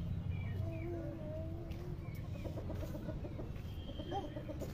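Domestic chickens calling and clucking: a drawn-out call in the first couple of seconds, then a quick run of clucks and one more short call near the end, over a steady low hum.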